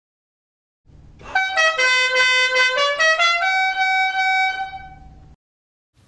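A short intro jingle: a quick run of about ten notes, changing pitch every fraction of a second, ending on a long held note that fades and then cuts off.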